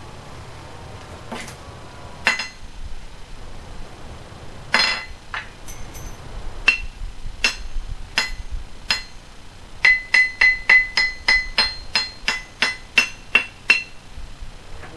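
Hammer striking a steel anvil: a few separate blows, then a quick run of about four blows a second near the end, each with a short bright metallic ring. The anvil has old nails bent over its side to dull the ring.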